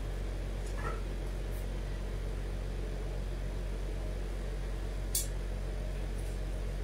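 Steady low electrical hum over room noise, with a faint short rustle about a second in and a brief sharp rustle about five seconds in, from a garment on a plastic hanger being handled.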